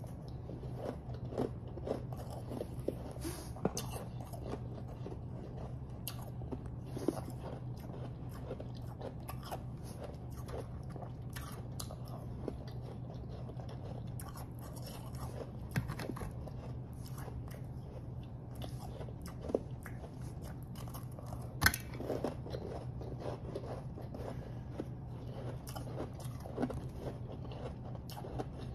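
Close-miked chewing of refrozen powdery snow ice: irregular crisp crunches, with one sharper crack about three quarters of the way in, over a steady low hum.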